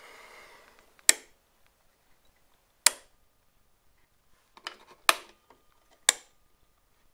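Metal toggle switch in a homemade fire-alarm pull-station base flicked back and forth, four sharp clicks a second or two apart. No horn sounds: the horn on the system is not working.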